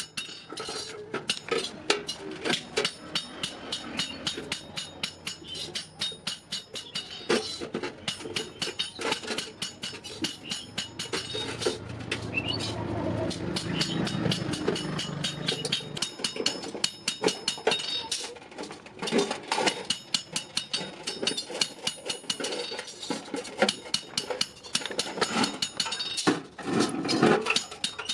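Hand hammer striking iron on an anvil in rapid, repeated blows, with the metal ringing after each strike. Near the middle the strikes give way for a few seconds to a steadier, noisier sound.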